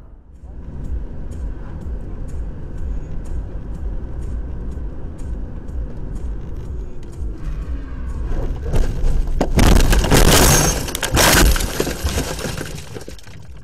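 Car running along a road, steady cabin and road noise with a light regular ticking, then about eight and a half seconds in a loud crash of several seconds as the car runs off the road into bushes, fading near the end.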